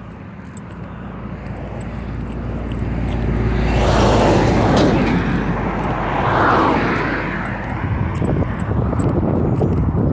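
A vehicle passing on the road, growing louder over the first four seconds and loudest around the middle. Quick rustling and clinking follow toward the end.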